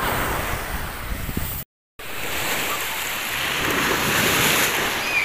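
Sea surf breaking and rushing over the shallows, with children splashing in the waves. The sound drops out completely for a moment about a second and a half in.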